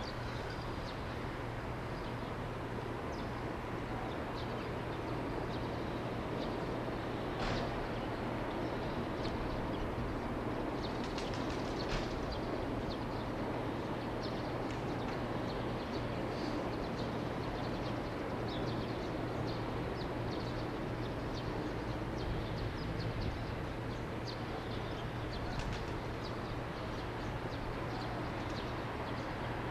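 Steady low background hum with the faint rumble of a distant electric freight train approaching, while small birds chirp now and then through the middle and later part.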